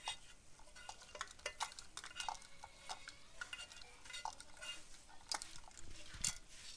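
A spatula scraping and tapping against a nonstick frying pan as roasted ground spices are knocked out of it into a pot, making irregular clicks and scrapes. The strongest knocks come about five and six seconds in. The pot of beef in oil sizzles faintly beneath.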